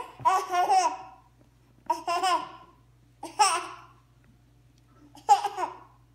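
A nine-month-old baby laughing and babbling in four short high-pitched bursts, each under a second long, with short quiet gaps between.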